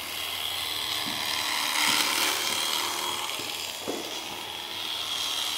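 Electric shearing handpiece running steadily, its reciprocating cutter rasping through an alpaca's thick fleece.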